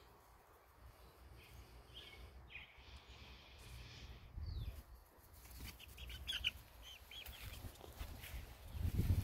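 Young chickens giving short, high chirping calls: a few scattered ones, then a quick cluster over a second or so past the middle. A low rumble swells near the end.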